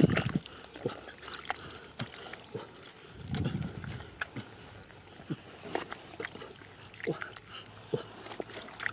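Hands squelching and splashing in shallow muddy water while grabbing fish, with many small wet clicks and a low slosh about three and a half seconds in.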